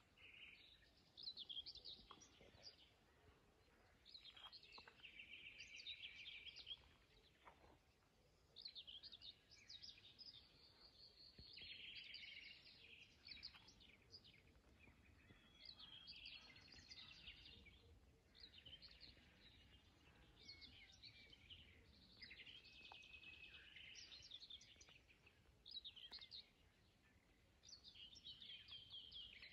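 Faint dawn birdsong: a string of short chirps, whistles and trills, a new phrase every second or two.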